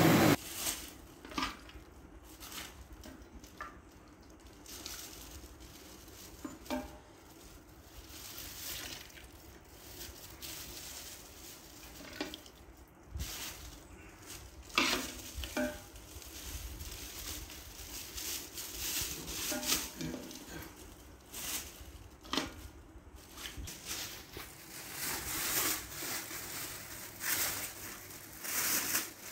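Thin plastic bags rustling and crinkling as small bagged portions of curry are handled and packed into larger plastic bags, with scattered louder crackles.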